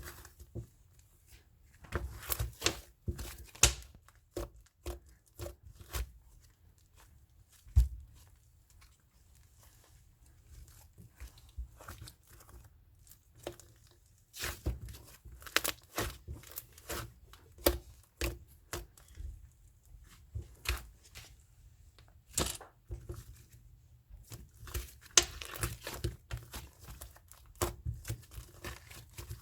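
Slime being squished and stretched by hand: irregular sticky clicks and crackling pops, coming in bunches with short quieter gaps between.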